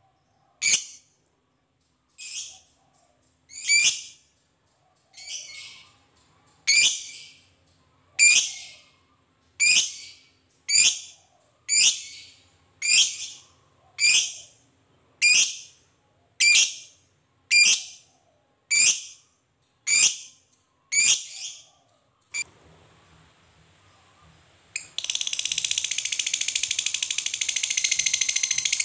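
Masked lovebird (yellow-collared, Agapornis personatus) giving short shrill single calls about once a second, the 'ngetik' call, for some twenty seconds. After a brief lull it breaks into a continuous rapid shrill chatter, the long 'ngekek', near the end.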